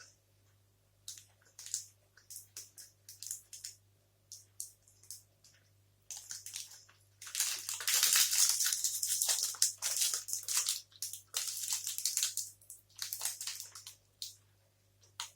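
Close-miked chewing of a fudge sea salt protein bar: irregular wet clicks and crunches, thickening into a dense run of loud crunching for several seconds past the middle.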